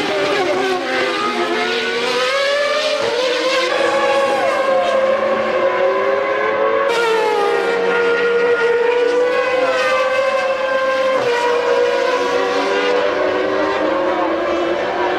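1996 Formula One race cars' engines running at high revs, several at once, the pitch rising and falling with gear changes and cars passing. The sound changes abruptly twice, about seven and eleven seconds in.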